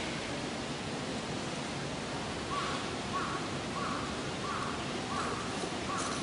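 Steady background hiss. From about two and a half seconds in, an animal calls six times in a row, short calls about one and a half a second.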